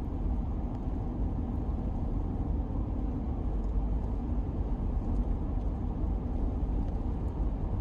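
Troopy (Toyota LandCruiser Troop Carrier) on the move: a steady low rumble of engine and road noise while driving.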